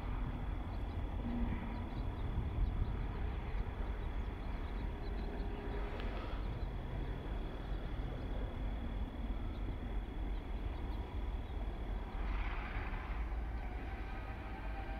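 Distant EMD GP15-1 diesel-electric switcher locomotives running as they pull away slowly: a steady low rumble. A faint steady high tone sits over it and stops about twelve seconds in.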